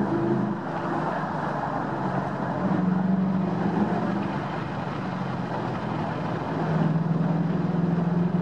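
2009 Ford Mustang's 4.6-litre V8 engine and exhaust, fitted with electric cutout valves, heard from inside the cabin while driving: a steady low engine note over road noise, swelling louder a couple of times as the car accelerates and easing off between.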